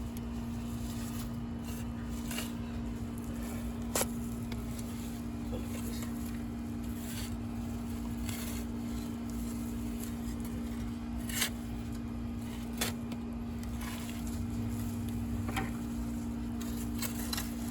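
Scattered scrapes and sharp knocks of potatoes being dug by hand out of hard garden soil, over a steady low hum.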